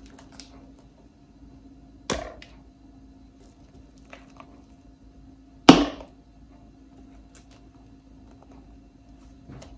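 Two sharp knocks of kitchenware against a hard surface, about three and a half seconds apart, the second louder, with a few faint clicks between them, over a steady faint hum.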